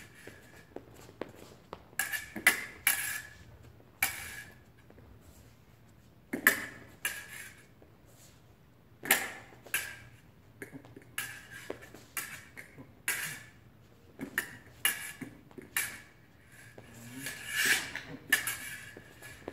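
Fencing blades striking and sliding against each other: irregular sharp metallic clinks, often two or three in quick succession, each ringing briefly.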